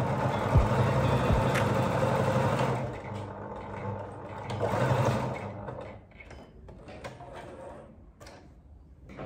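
Domestic sewing machine stitching a seam through layered sherpa and woven fabric, running steadily for about three seconds, pausing, then a second shorter run about five seconds in. After that come quieter scattered clicks and fabric rustling.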